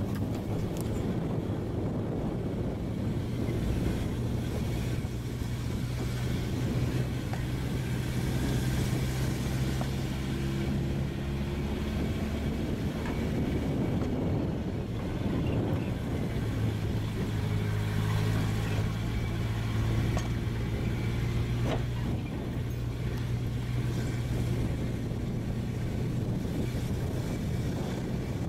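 Car engine running as it drives slowly up a dirt road, heard from inside the vehicle. The engine note eases off for a few seconds midway, then picks up again, with a couple of brief knocks.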